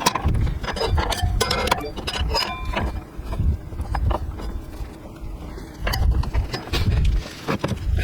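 Irregular metallic clicks and clinks of hand tools and parts being handled, with low knocks and rumbles of handling in between.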